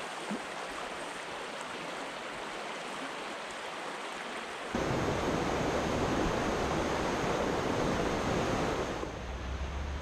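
Steady rushing of a small creek's flowing water. About halfway through it turns suddenly louder and deeper, then eases a little near the end.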